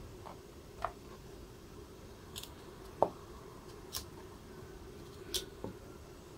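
Small kitchen knife cutting broccoli florets from the stalk on a plastic cutting board: about six scattered short, crisp snaps and taps, the loudest about three seconds in, over a faint steady hum.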